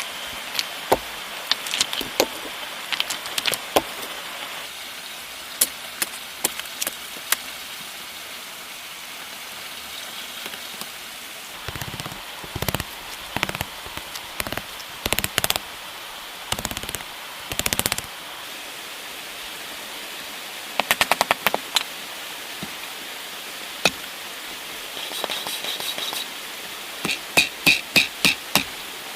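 Hammer blows in primitive blacksmithing: single knocks and quick runs of strikes, the last few with a ringing tone, over a steady hiss.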